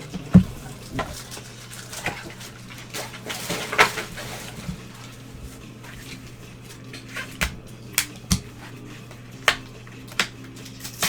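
Trading cards and their packaging being handled: a scattered series of sharp clicks and taps, with a brief rustle about four seconds in, over a steady low hum.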